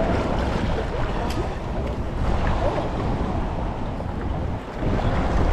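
Wind buffeting the microphone outdoors on open water: a steady, low rumble.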